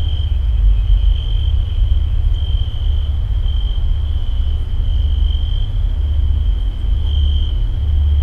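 Crickets trilling in one steady high-pitched note that swells and fades a little, over a loud, deep, continuous rumble.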